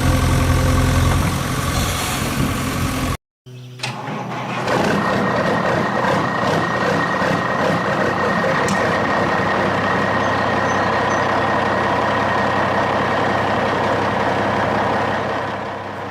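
A vehicle engine running, cut off abruptly about three seconds in. After a short gap, another steady engine-like running sound with a thin high whine carries on.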